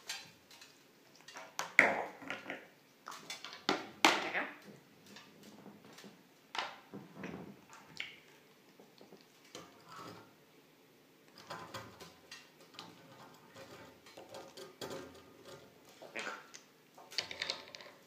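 Light clicks and clatters of small plastic and wire trick toys, a toy shopping cart and rings on pegs, handled by an African grey parrot. The sounds come at irregular intervals, the loudest about 2 and 4 seconds in.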